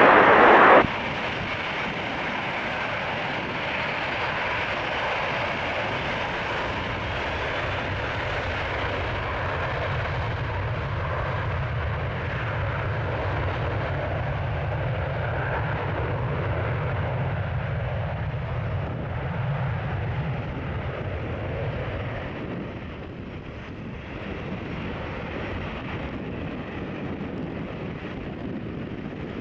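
McDonnell Douglas MD-87 jet with its two rear-mounted Pratt & Whitney JT8D turbofans at takeoff power, a steady jet roar with a deep rumble that fades about 22 seconds in as the aircraft rolls away and climbs out.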